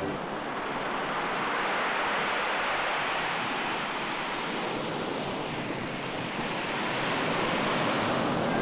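Ocean surf washing onto a sandy beach: a steady rushing noise that swells a little near the end.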